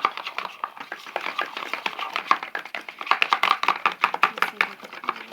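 Glue, detergent and paint being stirred together in a container for slime, the stirring utensil clicking and tapping rapidly and steadily against its sides.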